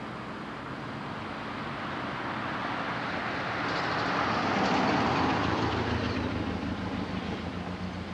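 A passing vehicle: a rush of noise that swells to a peak about halfway through and then fades, with a low engine hum underneath.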